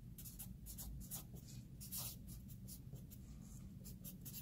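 Blue Sharpie felt-tip marker writing on paper: a faint run of short, separate pen strokes.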